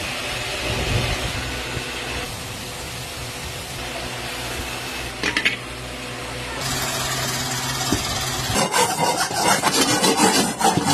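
Workshop noise with a brief clatter about five seconds in and a low hum, then for the last two seconds rapid rasping strokes of hand scrapers shaving the surfaces of metal cooking pans.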